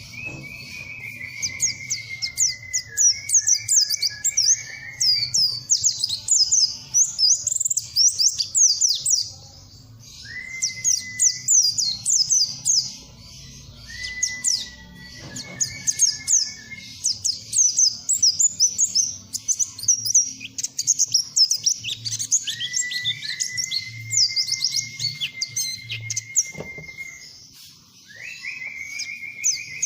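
Pleci (white-eye) singing: long runs of rapid, high twittering notes broken by short pauses, mixed with clear whistled notes, some held and some sliding.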